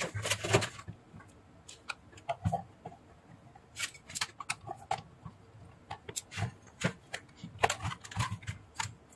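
Scattered light clicks and knocks from hands handling the metal case of a switching power supply, with a screwdriver working at its cover screws near the end.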